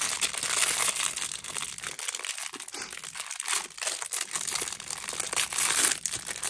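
Thin clear plastic bag crinkling and crackling as it is handled and pulled open, a dense run of small crackles.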